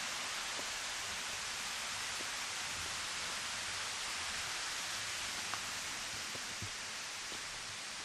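Steady rushing of water, an even hiss that slowly fades. A few faint taps come from footsteps on the stone path.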